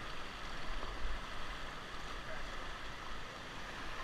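Steady rush of whitewater river flowing around a raft, with a low rumble underneath.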